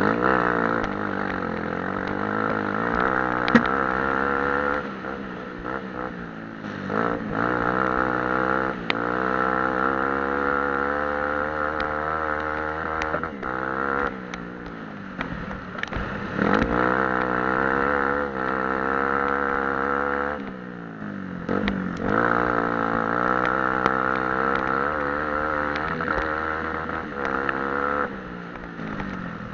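Off-road racing vehicle's engine revving up and easing off again and again as it is ridden hard, its pitch climbing and then dropping sharply several times.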